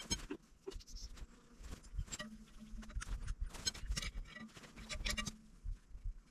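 Light, irregular metallic clicks and clinks of bolts and a wrench being worked by hand at a tractor's split-rim wheel hub, as long all-thread bolts are taken out and short bolts put back in. A brief steady low tone is heard twice, in the middle and near the end.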